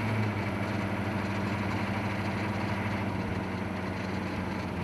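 A vehicle engine running steadily at an unchanging idle-like speed, a constant hum.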